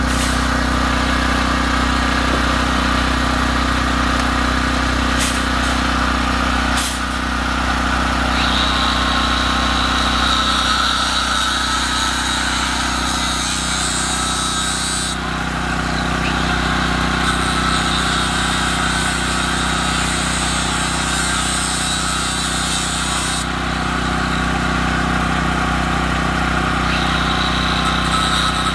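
An engine running steadily at idle, with a thin high whine that comes in about eight seconds in, drops out a few seconds later and returns near the end.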